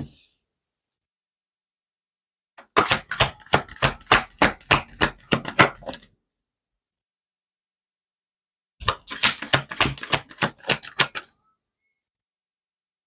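A deck of tarot cards being shuffled by hand: two runs of quick, sharp card slaps, about five a second, each lasting two to three seconds, with a pause between them.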